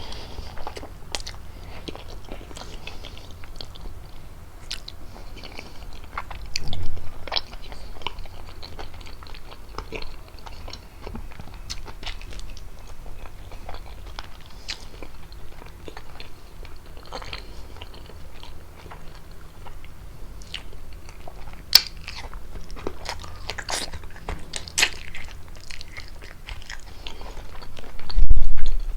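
Close-miked chewing and biting of fettuccine with chicken: wet mouth clicks and smacks scattered throughout. A low thump about seven seconds in and a louder one near the end.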